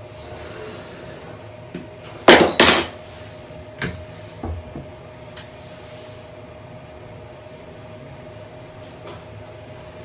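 Two loud, clattering knocks close together about two seconds in, then a couple of lighter knocks, as rigid parts are handled and fitted during the renovation work. A steady faint hum runs underneath.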